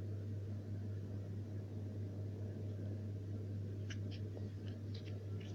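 A steady low hum with a faint background hiss, and a few faint light clicks near the end.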